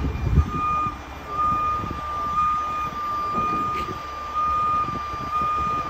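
Heavy wrecker's diesel engine running with a high warning alarm beeping in long, closely spaced pulses while it holds a lifted semi trailer on its boom cable. A brief low thump comes near the start.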